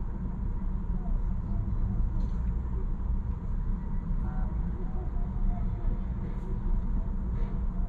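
Steady low rumble of idling car and city traffic passing across an intersection, heard from a car waiting at a red light.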